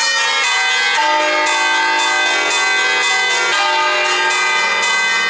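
Swinging church bells of a six-bell Barigozzi peal in flat E-flat, rung 'alla romana': overlapping bell strikes every fraction of a second, each ringing on into the next.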